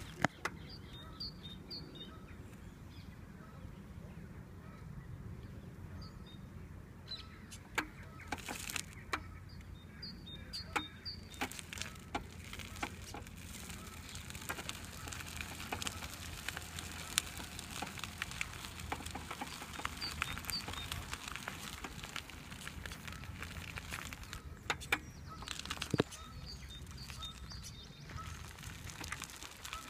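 Power wheelchair rolling along a gravel path: a steady low motor hum with scattered crunches and clicks from the tyres on the gravel. Birds chirp in short repeated phrases now and then.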